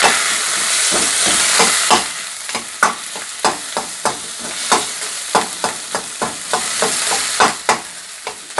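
Warm rice and pork belly sizzling in an iron wok while a ladle scrapes and knocks against the pan, turning the rice to coat it with oil. The sizzle is loudest for about the first two seconds, then drops, and the ladle strikes come a little under twice a second.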